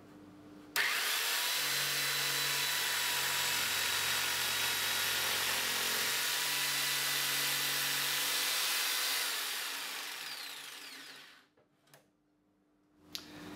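TACKlife TJS02A barrel-grip jigsaw running and cutting through a wooden board, starting abruptly about a second in, then winding down and stopping about ten seconds in as the trigger is released.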